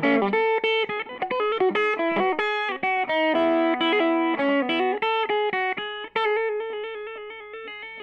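Outro music: a quick run of plucked notes that slows about six seconds in to fewer, held notes that ring out.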